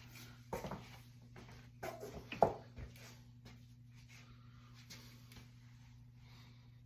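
A few short rustles and knocks, the loudest about two and a half seconds in, then faint ticks, over a steady low hum.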